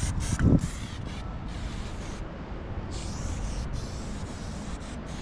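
Aerosol spray-paint can hissing in a run of short bursts and longer strokes as a black outline goes onto a concrete wall, over a steady low rumble. There is a dull low thump about half a second in.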